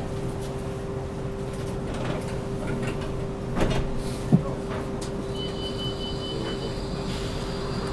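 Inside a moving city bus: a steady motor hum and road rumble, with a few rattles and one sharp knock about four seconds in. A high, thin electronic tone comes in past the five-second mark.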